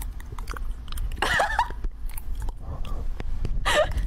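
Cat gnawing on a computer cable, a string of small crunching bites and clicks.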